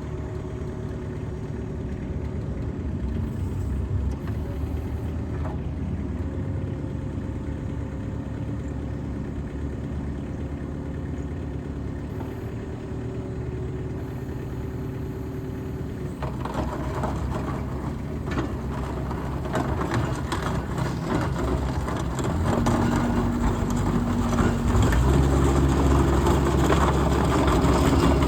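Mitsubishi MM40T mini excavator's S4L diesel engine running steadily. About sixteen seconds in, a rattling, clattering noise joins it. Near the end the engine speeds up and grows louder.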